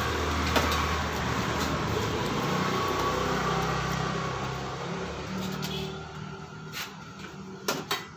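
A motor vehicle's engine running steadily, fading away over about six seconds, then a few sharp clicks near the end.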